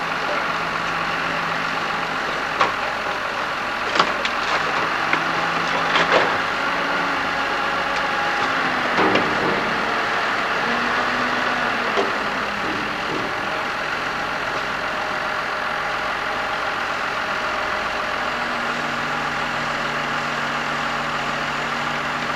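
Mobile crane's diesel engine running steadily while it lowers a heavy load, its note shifting about halfway through and again near the end. A few sharp knocks sound in the first half.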